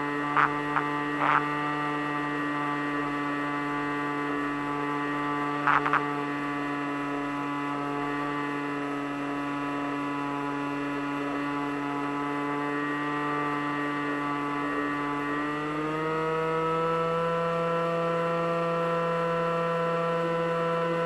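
Electric motor and propeller of an FPV Raptor model plane running at a steady pitch. It steps up in pitch and loudness about fifteen seconds in as the throttle is raised. A few short high chirps sit over it near the start and about six seconds in.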